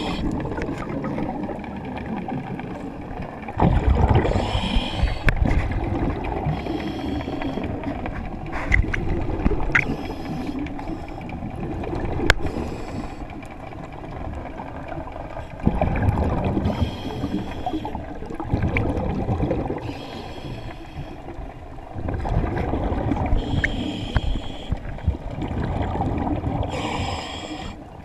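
Hookah diver breathing underwater through a surface-supplied air regulator: a bubbling rumble of exhaled air that swells and fades several times, with hissing bubble bursts on some of the breaths.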